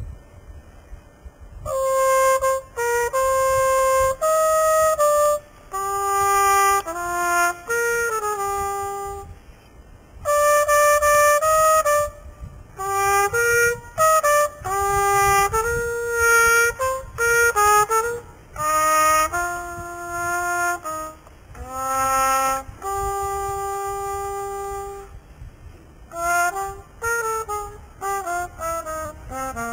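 Solo trumpet playing a slow, held-note melody in phrases separated by short pauses, starting about two seconds in, with a run of quicker short notes near the end.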